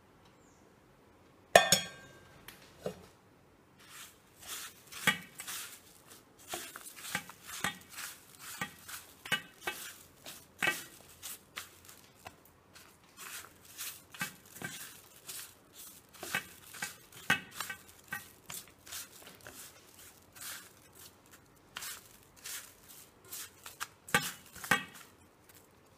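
Stainless steel kitchenware clinking and scraping: a sharp ringing metal clink about a second and a half in, then irregular taps and scrapes on a steel plate as grated coconut is mixed in it by hand.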